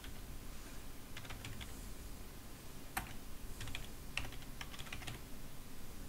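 Typing on a computer keyboard: short runs of key clicks, with one stronger keystroke about three seconds in.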